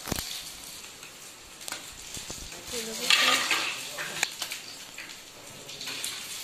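Hot cooking oil sizzling, with a steel ladle clinking against the pan and a plate as deep-fried potato-and-poha triangles are lifted out and set on a ceramic plate; a louder short clatter about three seconds in.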